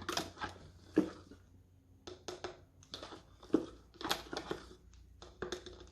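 Tablespoon measure scooping self-raising flour and tipping it into a small mixing bowl: an irregular run of short scrapes and light taps.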